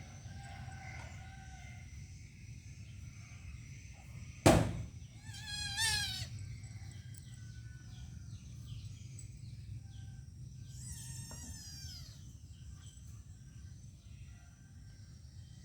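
A sharp knock about four and a half seconds in, followed by two short wavering animal calls, one right after the knock and one near the middle, over a steady low background hum with faint scattered chirps.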